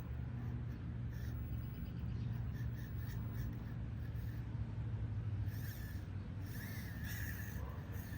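A 1/43-scale micro RC crawler running: a steady low motor and gear hum, with short high squeaks and scratchy scrapes now and then, more of them toward the end.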